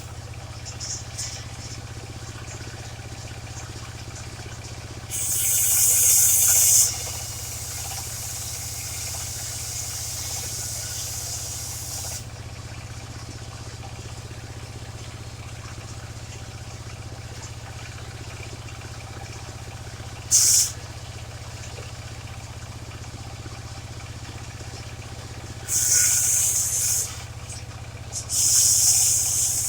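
Engine of a mobile circular sawmill running steadily at idle, broken four times by loud hissing bursts lasting a second or two each.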